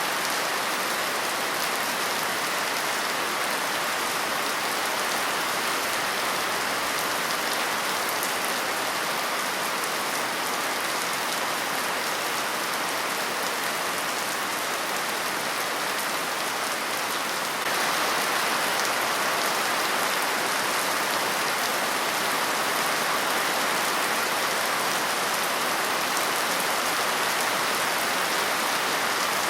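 Steady rain falling, a dense even hiss of many drops. About 18 seconds in it steps up slightly louder and stays there.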